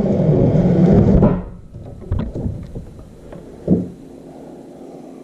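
Cable being pulled through and rubbing along the plastic kayak hull, a loud rumbling scrape for about a second and a half, then a few light clicks and a knock as it is handled.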